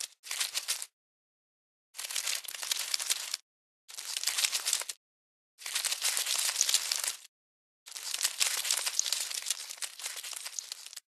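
A crinkling, crackling rustle sound effect played in five bursts of about one to three seconds each, every burst cutting off abruptly to dead silence before the next.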